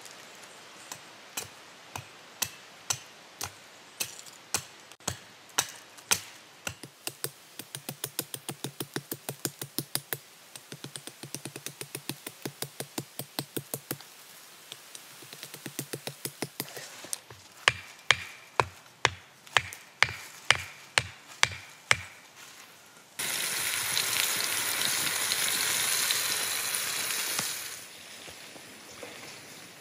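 Hatchet chopping at a wooden stick, a run of sharp knocks that quicken to about three a second, then heavier blows about two a second. Near the end the chopping stops and a loud steady hiss starts and cuts off suddenly about four seconds later.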